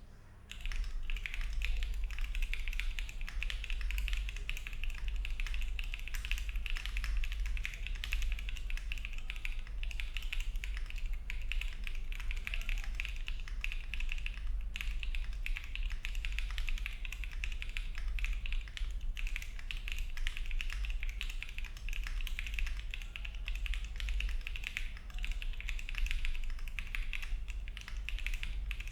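Continuous fast typing on a Luminkey65 mechanical keyboard with Gateron Summertime switches, a polycarbonate plate, no foam and ABS keycaps: a dense stream of keystroke clicks starting about half a second in, over a steady low hum.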